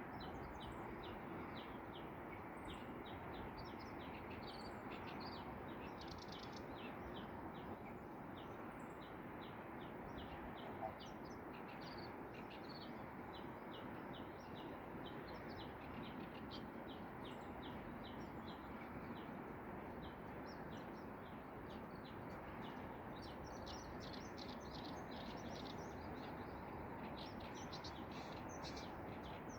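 Japanese bush warbler and oriental reed warbler singing over a steady background hiss. A rapid, continuous run of short chirps carries on throughout, with higher, harsher notes breaking in, busier toward the end. A single brief tap comes about eleven seconds in.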